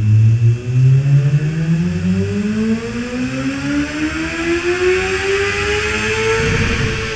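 Formula SAE race car's engine revving up on a chassis dynamometer in one long steady climb in pitch, levelling off at the top near the end.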